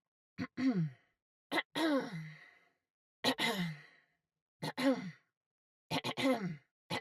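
A girl clearing her throat over and over, about five times with a sixth starting at the very end. Each is a short catch in the throat followed by a voiced grunt that falls in pitch, with brief pauses in between.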